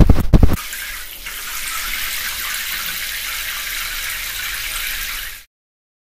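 Water-spray sound effect of a train wash: a short, loud low rumble at the very start, then a steady hiss of spraying water for about five seconds that cuts off suddenly.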